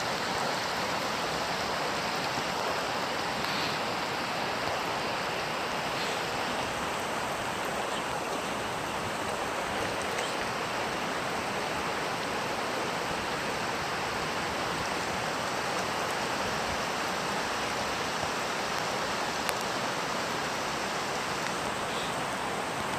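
Floodwater rushing steadily, an even, unbroken rush of fast-flowing water.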